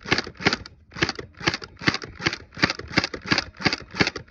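Battery-powered gel blaster (Orbeez gun) firing a quick, even string of shots, about three a second, each a short sharp burst.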